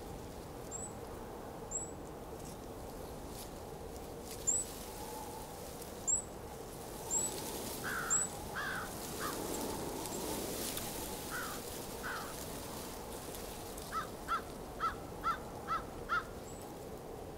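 Wild birds calling over a steady background hush: thin high chirps through the first half, a few louder calls around the middle, then a quick run of six short calls, about two a second, near the end.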